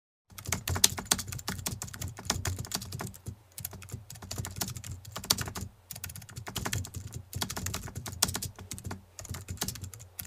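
Rapid typing clicks, a keyboard-typing sound effect played in quick runs with short pauses as on-screen text is typed out letter by letter.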